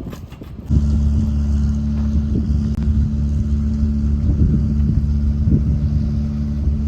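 A large engine running steadily at a constant speed, cutting in suddenly under a second in.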